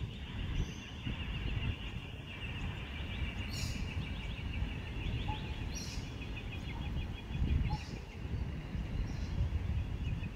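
Outdoor ambience: a continuous high, rapidly pulsing chorus of calling animals, with a few short high chirps over a low rumble.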